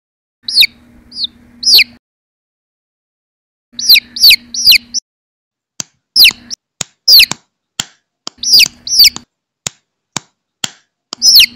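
Chicks peeping: loud, high-pitched peeps that slide downward in pitch, in quick runs of two to five with brief gaps between runs. A few sharp clicks fall between the runs.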